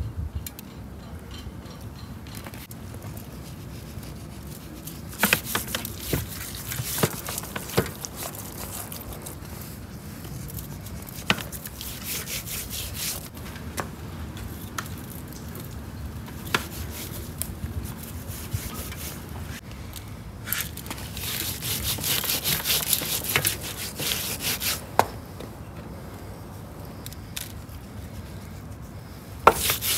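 Hands rubbing spice seasoning into raw bream on a steel tray: irregular bouts of rasping, rubbing noise with a few sharp clicks against the tray.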